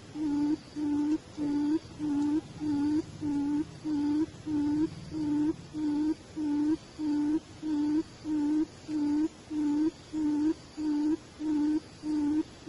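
A bird's low hooting call, one short note repeated very evenly about twice a second.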